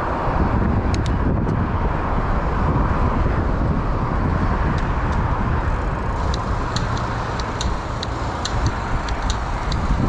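Steady rush of wind and road noise on a bicycle-mounted camera during riding, with traffic running below. From about six seconds in, light sharp ticks come in irregularly, a few a second.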